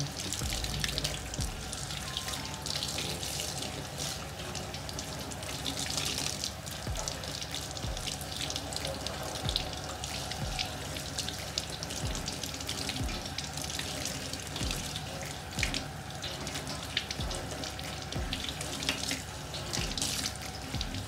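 Tap water running steadily into a stainless steel sink, splashing over a whole fish as it is rinsed and rubbed by hand.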